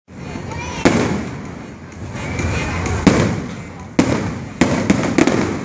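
Aerial fireworks bursting: about six sharp bangs, spaced a second or more apart at first, then several in quick succession near the end.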